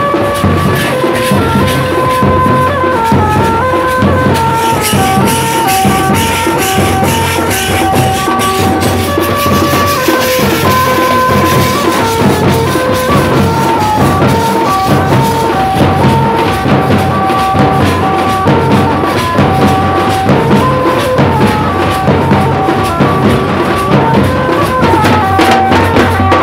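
Tasha drums beaten fast and continuously with thin sticks, together with other drums, while a melody instrument plays a stepping tune over them: band-and-tasha music.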